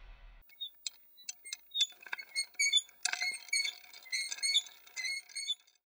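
Animated logo sound effect: a few sharp clicks, then a quick run of high, bright chiming plinks that stops shortly before the end. A music track cuts off just before the clicks begin.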